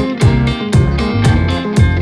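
Background music: guitar over a steady beat of about two beats a second.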